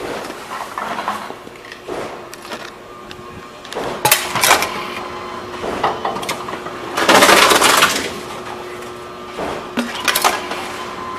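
Envipco CF-1500 reverse vending machine humming steadily while containers are fed through it, with sharp clatters about four seconds in and a louder rattle lasting about a second a little past the middle. A few clicks follow near the end.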